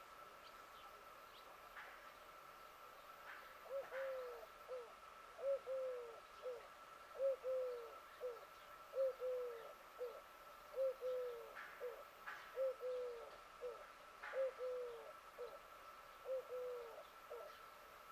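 A bird cooing in low phrases of three notes, the middle note longest and falling in pitch. The phrase repeats steadily about every second and a half to two seconds, starting a few seconds in and stopping shortly before the end.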